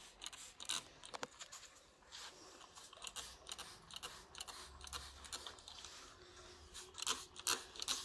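Plastic trigger sprayer from a Colin glass-cleaner bottle being squeezed again and again, each pump a short click with a brief spritz of mist, at an uneven pace.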